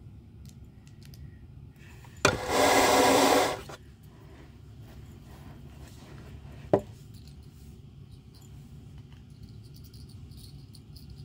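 A loud rubbing rustle lasts about a second and a half, starting about two seconds in, followed by a single sharp click. Near the end come faint small clicks of loose plastic LEGO bricks as a hand sorts through a pile of pieces.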